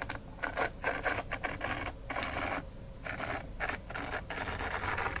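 Small N gauge model tank locomotive running along the track in fits and starts, its motor and wheels giving a rasping whirr that cuts out briefly again and again. This is the sign of poor electrical pickup from dirty track, with the engine struggling to get round.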